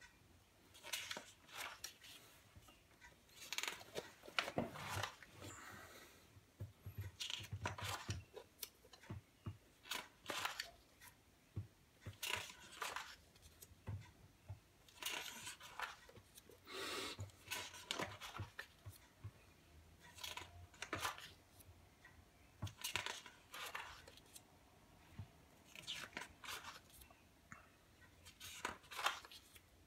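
Pages of a spiral-bound photobook being turned and handled by hand: a string of short paper rustles and swishes every second or two.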